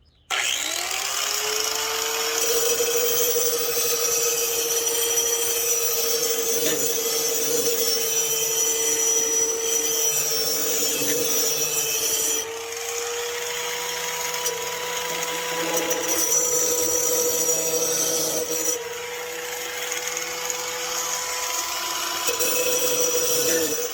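Angle grinder fitted with a cutting wheel, switched on with a quick rising whine, then grinding the steel lawnmower blade's edge: a steady motor whine under a harsh grinding rasp that eases and comes back a few times as the wheel's contact with the blade changes.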